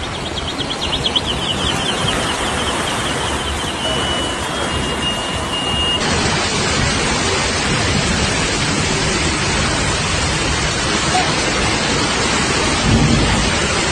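A steady, loud rush of water during typhoon flooding, with a sudden change in its sound about six seconds in. Before the change, a faint rapid high chirping can be heard over it.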